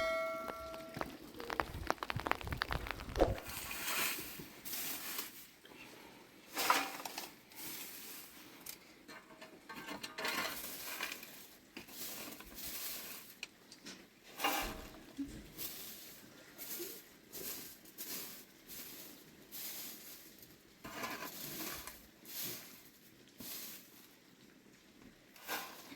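A bell rings briefly at the start, then intermittent rustling, scraping and clattering, like things being handled and moved about.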